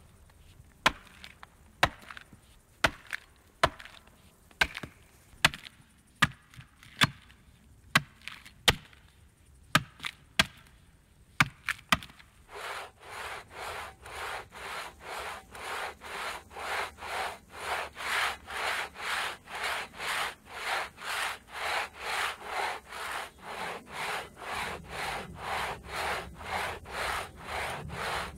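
Axe chopping into the base of a standing tree trunk by hand, sharp blows about one a second, which stop about twelve seconds in. A two-man crosscut saw then takes over, cutting through the trunk in steady rasping strokes about two a second: a tree being felled by hand.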